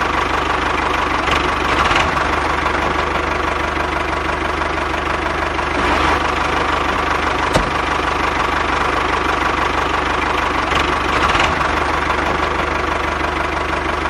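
An engine running steadily at idle, with a few brief swells in level and one short click partway through.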